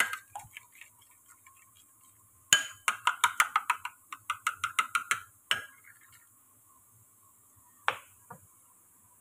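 A spoon beating eggs in a bowl, clinking against the bowl in a quick run of taps, about six a second for some three seconds, with a single clink near the start and another near the end.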